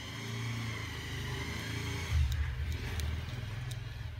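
Low, continuous rumble of a motor vehicle engine that swells briefly about halfway through, with a few light clicks in the second half as small phone parts are handled.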